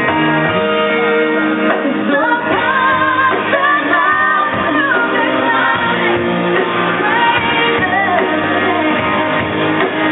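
A female singer with a live band performing a pop-country ballad, her sung lines wavering with vibrato over guitar accompaniment.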